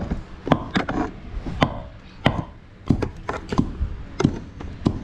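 Pestle pounding green herbs in a mortar: about ten dull thuds at an uneven pace, roughly two a second.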